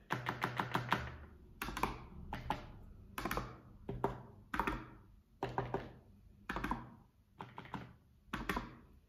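Wine cork dabbed repeatedly onto paper over a plastic cutting mat: short clusters of quick taps about once a second.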